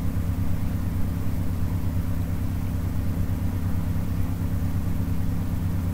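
A steady low hum with an even pitch.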